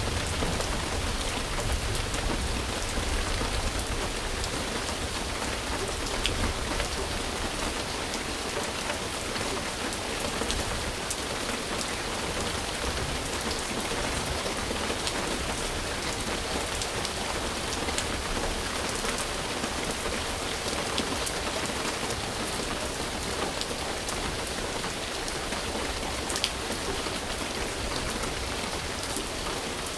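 Steady rain falling on a surface, an even hiss with the odd louder drop ticking. A low rumble sits under it, strongest in the first few seconds and then easing off.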